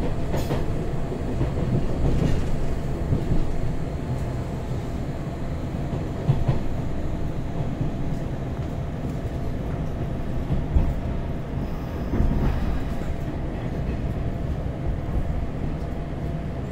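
Hanshin Electric Railway limited express train running at speed, heard from inside the passenger car: a steady low rumble of wheels on the track with a faint steady hum and a few brief knocks, the loudest about eleven seconds in.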